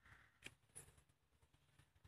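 Near silence: faint room tone with a few faint ticks.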